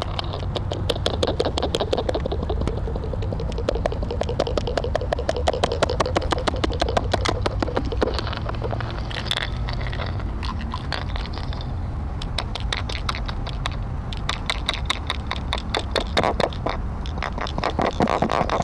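Rapid scratchy scraping on the surface of a public sculpture: a dense run of quick clicks, busiest in the middle and again near the end, over a steady low rumble.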